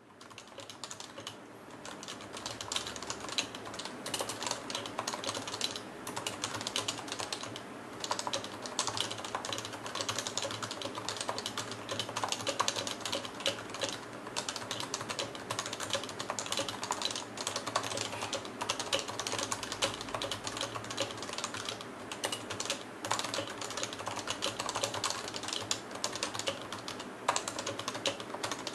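Continuous fast typing on a Topre electrostatic-capacitive keyboard: a dense stream of soft, muted keystroke clacks from the rubber-dome switches, fading in over the first couple of seconds.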